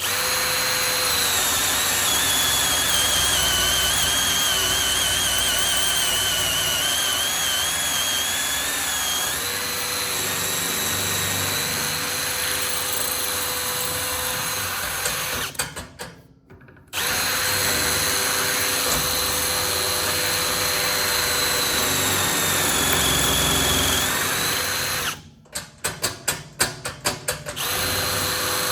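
Milwaukee M18 cordless drill, held in a safe-drilling rig, running steadily as its bit bores through the safe door into the lock body. It stops briefly about halfway through. Near the end it is pulsed on and off several times in quick succession before running steadily again.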